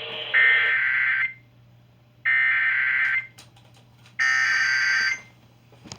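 Emergency Alert System SAME digital data bursts: three buzzy, screeching bursts of data tones, each about a second long and about a second apart.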